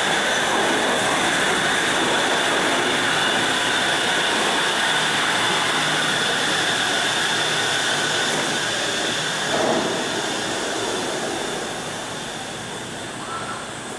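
Shonan Monorail suspended monorail train running close by as it pulls in, its running gear and drive giving a loud, steady hum with a high whine held on two pitches. There is a brief knock about ten seconds in, and the noise dies down over the last few seconds as the train comes to a stop.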